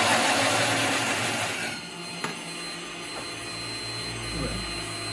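Bosch PBD 40 drill press driving a hole saw through particleboard: a loud grinding cut that eases off about two seconds in, leaving the steady whine of the gear-driven machine running.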